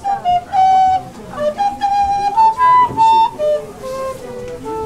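A long wooden recorder playing a short melody of clear, separate notes that move up and down and then step lower near the end; its low pitch comes from its length.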